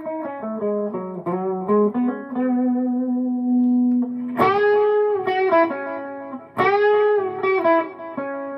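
Electric guitar, a Harley Benton SC-DLX, played through a Tone City King of Blues dual overdrive pedal with a little delay. It plays a run of single notes and a long held note, then two hard-picked bent notes, one about four and a half seconds in and one about six and a half seconds in.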